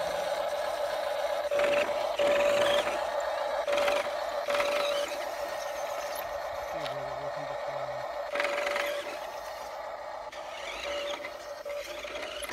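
Small electric motor of a radio-controlled toy vehicle whining at a steady pitch, with a few short louder swells.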